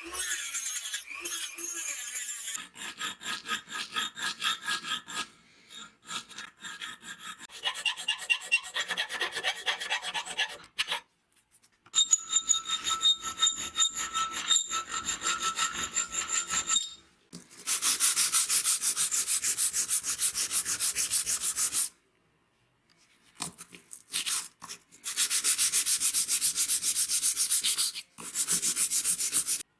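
Fast, rhythmic hand rubbing on a hard surface, in several bursts separated by brief gaps. In the middle stretch the rubbing carries a steady high ring, and the last two bursts are the loudest and fastest.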